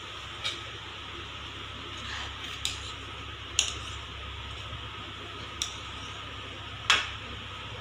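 Short sharp clinks of stainless steel tableware as idlis are served onto a steel partitioned plate: five light knocks spread out, the loudest near the end, over a steady low hum.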